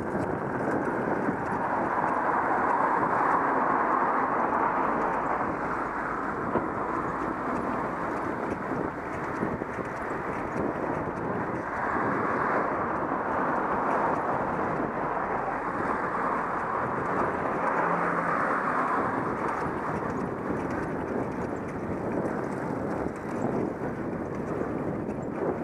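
Steady rushing noise of riding a bicycle along a lane: wind on the microphone mixed with the tyres rolling over the road surface.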